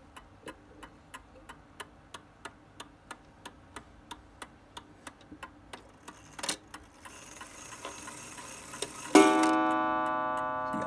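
Old mantel clock ticking about three times a second. About six and a half seconds in, the striking mechanism clicks and runs with a rising whir. Then the hammer hits the metal gong rod once, and it rings on and slowly fades: the clock striking the half hour.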